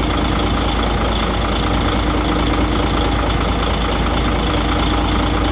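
DAF truck's diesel engine idling steadily.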